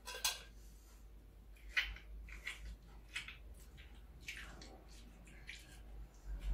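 Soft, irregular scraping and squishing of a knife hollowing out small red vegetables by hand for stuffing, about nine short strokes.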